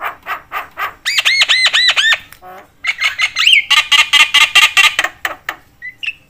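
Javan myna singing in full voice: a run of quick harsh notes, then about five arched whistled notes, a short low rasp, and a fast, dense chatter that stops about a second before the end.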